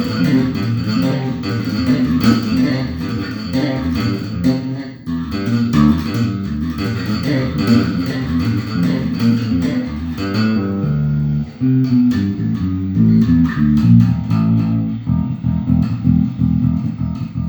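Solo bass guitar played in quick runs of short plucked notes, one note after another with scarcely a break, as a warm-up.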